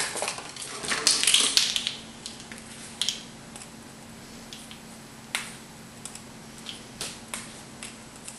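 Measuring spoon scraping and clicking against a spice jar while scooping out garlic powder, with a burst of scraping and rattling in the first two seconds and then scattered light taps.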